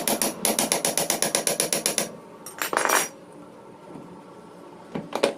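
Metal hand tool working on a motorcycle engine: a fast, even run of sharp metallic clicks, about eight a second, that stops about two seconds in, followed by a few separate knocks.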